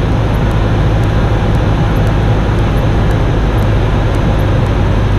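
Cessna 172's piston engine and propeller running steadily in flight, a constant low drone with wind rush, heard from inside the cabin.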